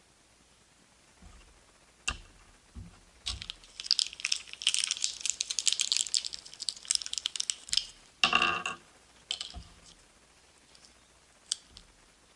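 A surprise egg's wrapper being crinkled and torn open by hand: a sharp click, then a few seconds of dense crackly rustling full of small clicks, with a short pitched squeak about eight seconds in and a few scattered clicks after.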